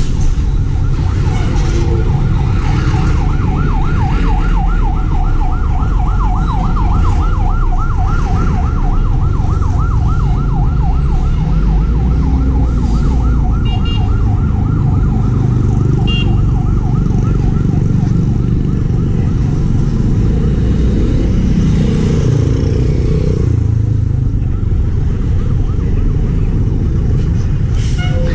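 Emergency vehicle siren in a rapid yelp, its pitch sweeping up and down several times a second, fading out about two-thirds of the way through. A heavy low rumble of road traffic runs under it.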